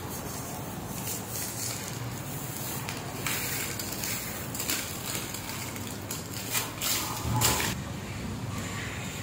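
Kitchen knife peeling the thick skin off a cassava root: scraping and tearing strokes, a few of them louder in the second half.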